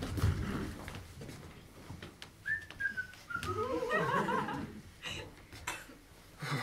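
Someone whistling a short phrase that falls in pitch, followed by a wavering, higher voice-like tone for about a second.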